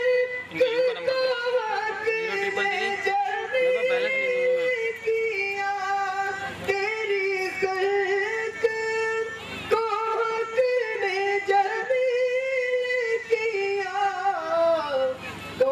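A man singing solo at a microphone, unaccompanied, in a high voice with long held notes and ornamented slides between them.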